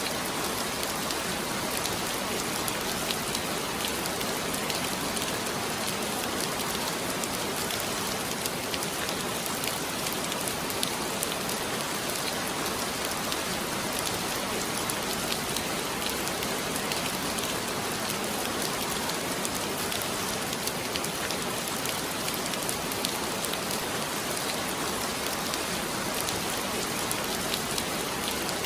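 Heavy rain falling steadily, a dense even hiss with scattered individual drop taps.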